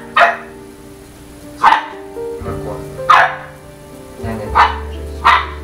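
A dog barking five times, single barks roughly a second and a half apart, over background music with long held notes.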